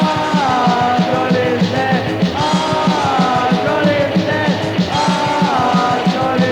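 Hardcore punk song playing: a full rock band with a fast, steady drum beat under pitched guitar and vocal lines that slide up and down.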